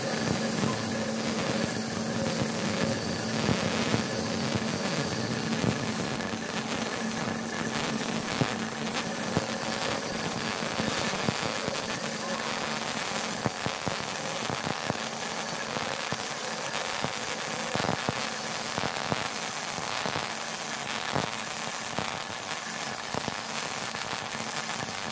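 MIG welding arc on 16 mm structural steel plate, crackling and sputtering steadily with sharp pops from the spatter, over a steady low hum.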